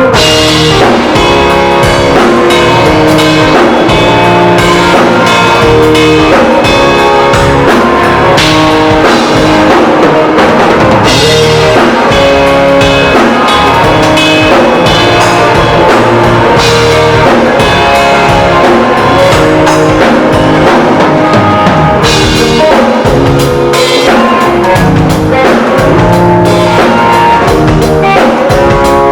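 Live band playing at a sound check: a drum kit keeping a steady beat with bass and guitar, loud and continuous.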